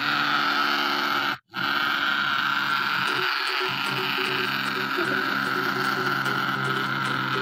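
Small battery motor of a homemade paper-cup scribbling robot buzzing steadily as it vibrates, cutting out briefly about a second and a half in.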